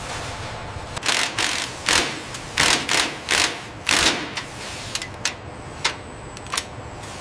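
Assembly-line machinery: a run of short hissing bursts for the first few seconds, then three sharp clicks, over a steady background hum.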